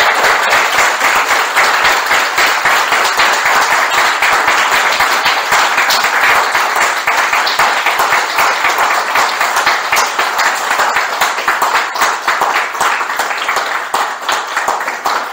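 Audience applauding, a steady patter of many hands clapping that eases slightly near the end.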